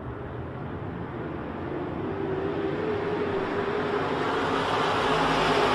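Race car engines running hard on a dirt oval, growing steadily louder as the cars come closer, with a steady engine note standing out from about two seconds in.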